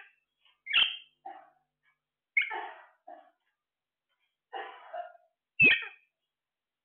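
Caged green parakeets giving short, harsh squawks, about five calls spread over several seconds, some followed by shorter, lower chattering notes.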